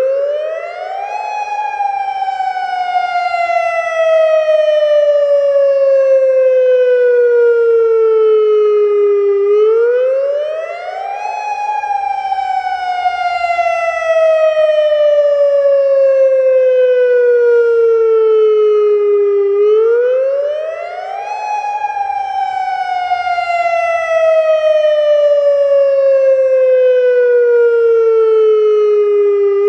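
Federal Signal Modulator 3012 outdoor warning siren sounding its wail signal. The pitch climbs quickly, then falls slowly over about eight seconds, repeating about every ten seconds.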